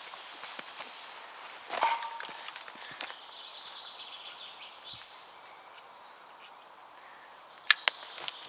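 Footsteps and rustling on a forest floor of needles and dry twigs, with sharp twig snaps: a cluster about two seconds in, one at three seconds and two more near the end. Birds chirp faintly behind.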